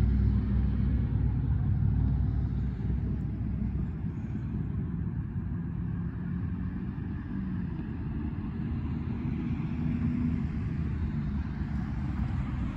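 Low rumble of motor vehicle traffic, loudest at first and easing off over the first few seconds, then holding steady.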